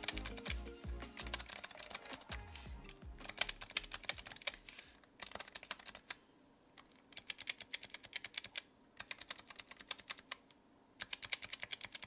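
Typing on a low-profile Keychron mechanical keyboard fitted with new white keycaps, which sound a bit thumpy: runs of quick key clicks broken by short pauses. Background music fades out over the first few seconds.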